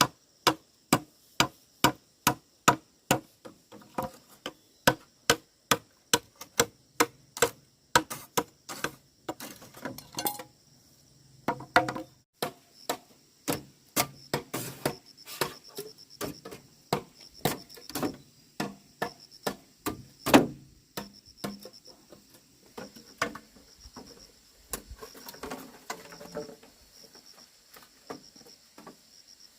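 Hammer strikes, about two a second for the first ten seconds, then more spaced and irregular, with insects buzzing steadily in the background.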